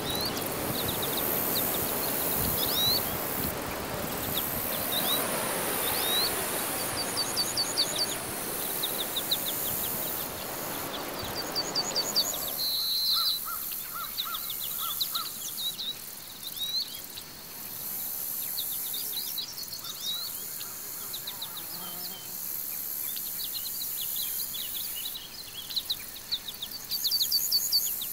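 Outdoor ambience of many small birds chirping in quick short rising calls over a steady high hiss. A rushing background noise stops suddenly about halfway through, leaving the chirps clearer.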